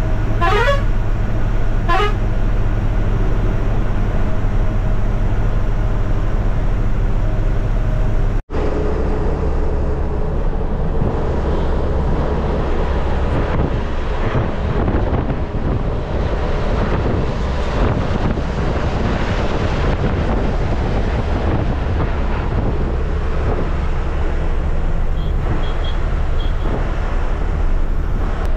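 Ashok Leyland sleeper coach's diesel engine and road noise heard from the driver's cabin, with two short horn blasts about a second apart near the start. The sound drops out for an instant about eight seconds in, then the engine and road noise carry on.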